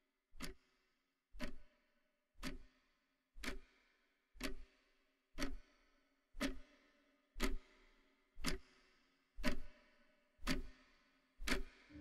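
Clock ticking, one tick a second, each tick with a short ringing tone, slowly growing louder.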